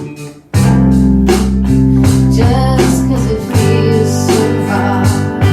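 Band music led by guitar, dropping away briefly and then coming back in at full strength about half a second in.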